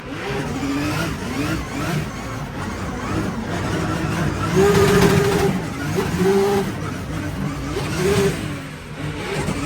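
Drift car engine revving, its pitch rising and falling several times, with a sustained high rev a little under halfway through.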